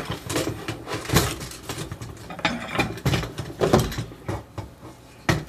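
Irregular knocks, clicks and rattles of an angle grinder and its carrying case being handled as the grinder is pushed into the case with its side handle on.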